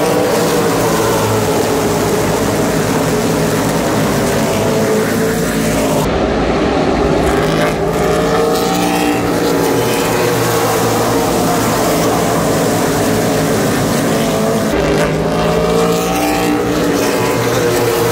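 Super Late Model stock cars' V8 engines racing past at speed, loud and continuous. The engine pitch sweeps down each time a car goes by, with several pass-bys overlapping.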